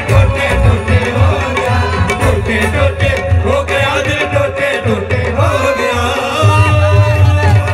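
Live Punjabi folk music played through a concert sound system: a dhol drum beats heavily under a melodic line.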